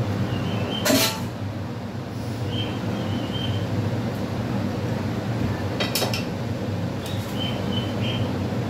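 Steel kitchenware clanking over a steady low rumble: a loud ringing clank about a second in as a steel bowl is set down, then lighter clinks of metal tongs against a steel kadai of frying chicken about six and seven seconds in.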